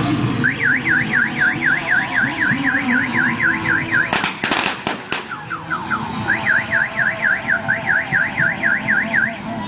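Electronic siren yelping, its pitch sweeping rapidly up and down about four times a second. It sounds in two runs of a few seconds each, broken by a short burst of noise near the middle.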